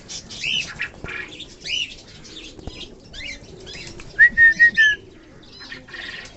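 Pigeons' wings flapping as the flock moves about to be fed, with small birds chirping in short high notes throughout. About four seconds in, the loudest sound: a call of four short, even, high notes in quick succession.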